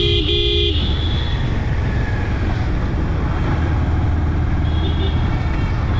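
Motorcycle engine running while riding, a steady low drone with wind noise on the camera microphone. A vehicle horn beeps briefly right at the start.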